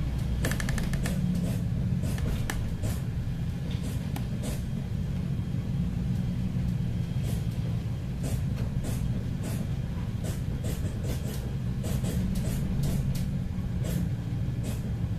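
A boat's engine drones steadily, heard from inside the wheelhouse. Scattered sharp ticks and taps sound over it.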